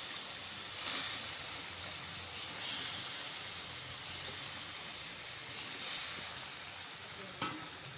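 Tomato-onion masala sizzling and hissing steadily in a cooking pot, with raw potato slices just added on top.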